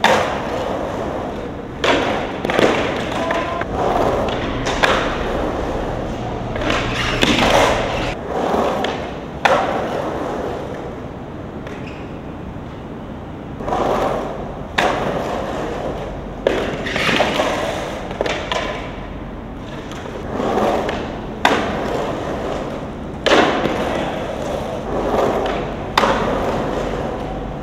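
Skateboard urethane wheels rolling and carving on a concrete bowl, the rolling swelling and fading, broken by about a dozen sharp clacks and knocks as the trucks and board hit the coping and land on the concrete.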